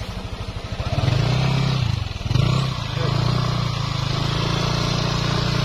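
Yamaha NMAX scooter's single-cylinder engine revving hard under load as it is pushed through sticky mud. The revs climb about a second in, drop briefly near the two-second mark, then hold high and steady.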